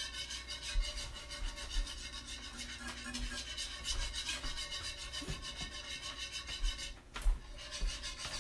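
Wire whisk stirring milk and Alfredo sauce mix in a frying pan, making steady, quick scraping strokes against the pan. There is a single knock about seven seconds in.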